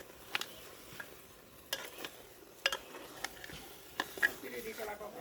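Cooking utensil stirring food in a pan, knocking sharply against it about five times over a faint hiss of frying.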